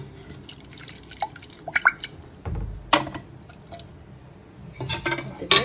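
Water dripping and splashing lightly into an aluminium pot of soaked pasta, with scattered small clicks and light metal knocks of the pot, the loudest knock near the end.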